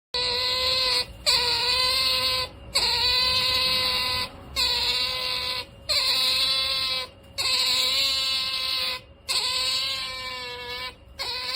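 Pet otters calling: about eight long, high whining calls in a row, each held at a steady pitch for a second or so with short breaks between.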